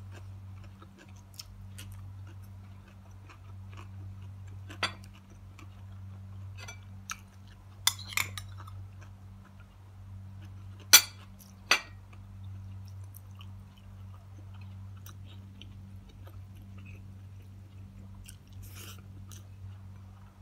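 Close-up chewing and mouth sounds of someone eating rice and fried fish, with a few sharp clicks of a metal spoon on a ceramic plate, the loudest two about eleven and twelve seconds in. A steady low hum runs underneath.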